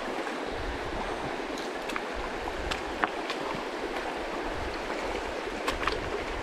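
Shallow river running over small rapids: a steady rush of water, with a few brief sharp ticks scattered through it.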